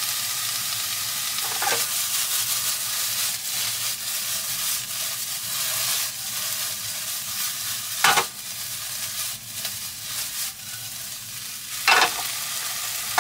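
Diced chicken frying with a steady sizzle in a non-stick frying pan on a portable gas stove while the pan is shaken and tossed. There are three sharp clanks of the pan against the burner, two loud ones in the second half.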